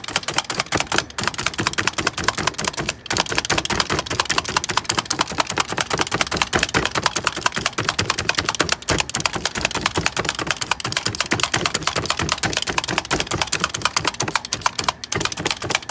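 Handheld Jacquard blade meat tenderizer stamped again and again into a raw, rub-coated beef brisket: a fast run of clacking strokes, several a second, with a few brief pauses.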